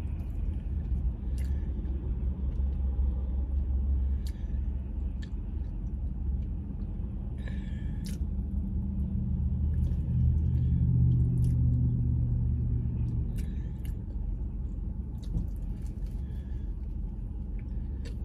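Faint wet licking and lip-smacking as a frosting-glazed honey biscuit is eaten, a scattering of small clicks over a steady low rumble inside a parked car.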